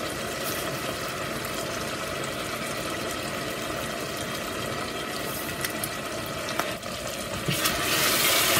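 Tomato sauce simmering in oil in a stainless steel pot, a steady bubbling and sizzling. About seven and a half seconds in it grows louder as the sauce is stirred.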